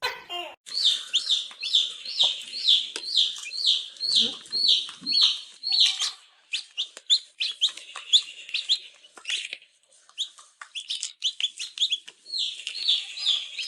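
A series of short, high chirps from an animal, about two to three a second at first, then breaking into quicker, irregular chirps and clicks, with a brief pause before a last dense run.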